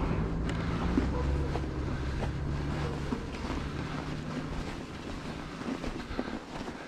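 A motor vehicle's low engine hum fades away over the first five seconds, with wind rushing on the microphone. After that, only faint rumble and a few light clicks are left.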